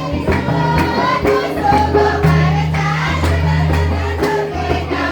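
Adivasi dance music: voices singing together over a steady beat with a deep, sustained bass line.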